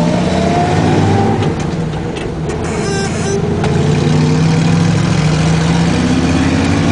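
Chevrolet 283 V8 with a four-barrel Edelbrock carburettor accelerating a 1962 Chevy C10 pickup away from a start, heard from inside the cab. The revs climb, dip about two seconds in, then climb steadily again.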